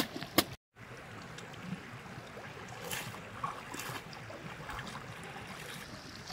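Steady rushing outdoor noise like running water, with two sharp clicks at the start and a brief drop to total silence just after.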